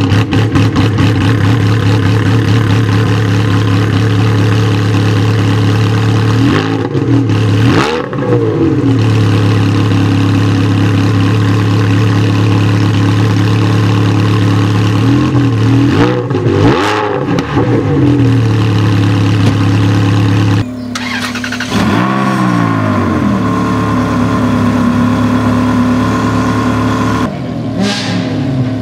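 Ferrari 360 Challenge Stradale's flat-plane V8 idling steadily, blipped in short revs that rise and drop back: twice about seven seconds in and in a quick cluster around sixteen seconds. After an abrupt cut, a 360 Challenge Stradale idles at a lower pitch with a single rev, and near the end another rev rises and falls.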